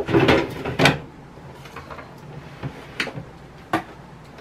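Kitchen things being handled on a counter: a clatter with rustling in the first second, then a few light knocks spaced apart.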